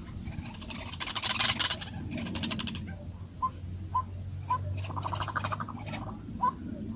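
Birds calling: two bursts of rapid chattering trill, about a second in and again about five seconds in, with short single chirps dropping in pitch between and after them, over a steady low hum.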